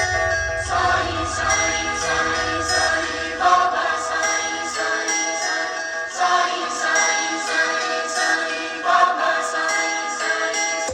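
Music: a melody of sustained notes over a heavy bass line, with the bass dropping away about halfway through.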